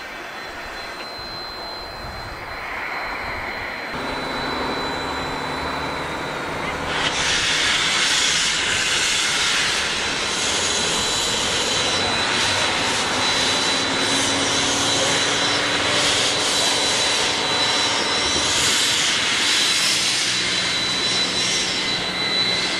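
Narrow-gauge steam locomotive No. 20 moving off slowly. About seven seconds in, a loud steady hiss of steam starts suddenly from its open cylinder cocks.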